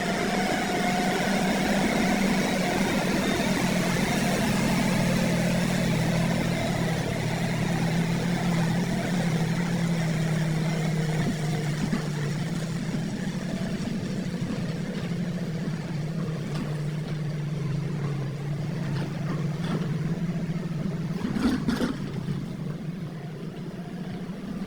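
Heavy diesel earthmoving machinery engine running steadily at a constant pitch, louder in the first half and easing down later, with a couple of sharp knocks a little over 20 seconds in.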